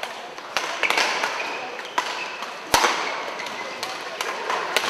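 Badminton rally: rackets striking the shuttlecock with sharp cracks, about four times, the loudest near the middle, with short squeaks of players' shoes on the court mat in between.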